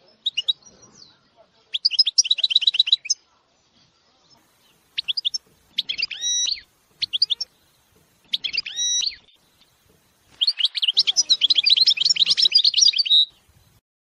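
Caged finches singing: short high phrases of quick chirps and trills, then a long rolling trill lasting about three seconds that breaks off shortly before the end.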